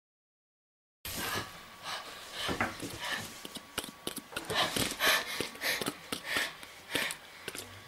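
A person breathing hard and panting in a string of quick, noisy breaths, starting after about a second of silence.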